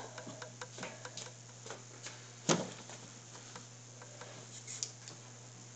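Faint scattered clicks and taps, with one sharper click about two and a half seconds in, over a steady low electrical hum.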